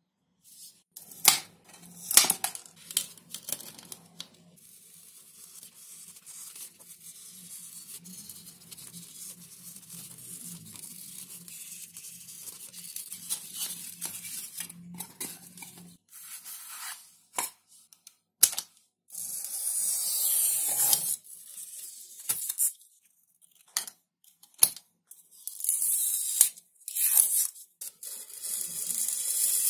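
A few knocks of steel bars set down on foam sheet, then a faint low hum under light scratching, then a snap-off utility knife slicing XPS (Depron) foam in repeated strokes of a second or two, each a crisp rasping cut.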